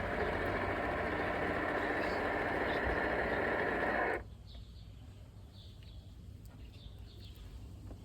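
DeLonghi bean-to-cup coffee machine running a steady mechanical whir that stops abruptly about four seconds in, leaving a faint low hum. It is the machine's brew cycle, with a grinder that is not grinding.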